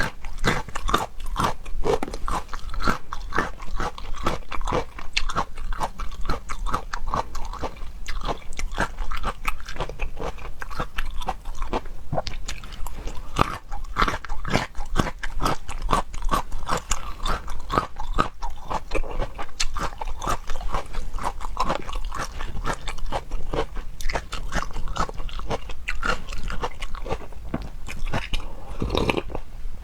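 Close-miked chewing of crunchy food: a dense run of crisp crunches and bites, one after another.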